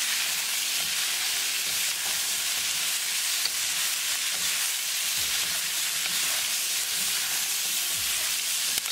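Chicken strips, bell peppers and onion sizzling steadily in hot oil in a wok while being stirred and tossed with a wooden spatula.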